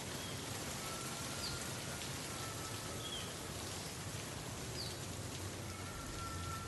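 Steady hiss of rain, with a few faint high chirps about one and a half, three and almost five seconds in.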